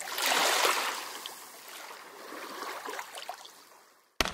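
Intro sound effect: a rushing whoosh that swells at once, then fades away over about three seconds, with faint sparkling tinkles in it. Near the end it breaks off into a sudden low rumble.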